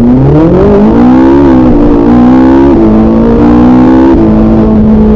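Racing car engine revving. Its pitch climbs over the first second and a half, steps down a couple of times, then holds at a steady drone.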